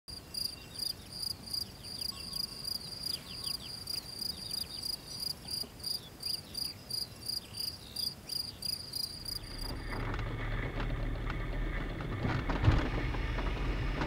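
A cricket chirping in an even rhythm, about three high chirps a second. About nine and a half seconds in it gives way to the low, steady rumble of a car driving, with a single knock near the end.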